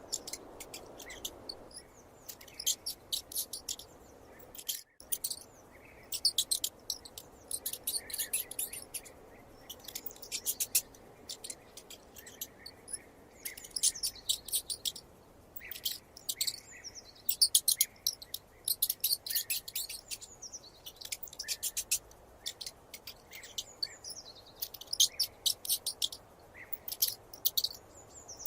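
Mouse squeaking: quick trains of very high-pitched squeaks in bursts of a second or so, with short pauses between them.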